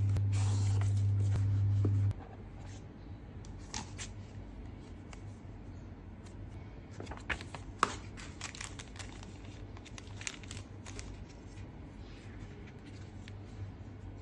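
Cardboard box and plastic packaging being handled: rustling, crinkling and scattered light clicks, with one sharper click a little past the middle. A steady low hum sounds for the first two seconds and then stops abruptly.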